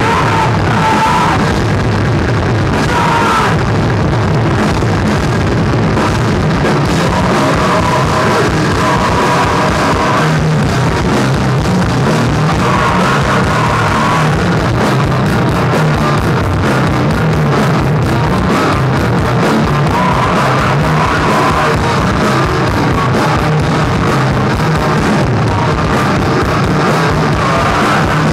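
Live rock band playing loud and without a break: saxophone phrases over a drum kit and an amplified stringed instrument.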